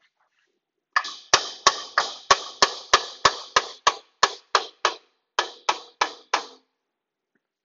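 A mallet hammering on the end of a Shopsmith bandsaw's lower wheel shaft, driving the shaft and its water pump bearing out of the housing. About seventeen blows, roughly three a second with a short pause partway, each ringing briefly.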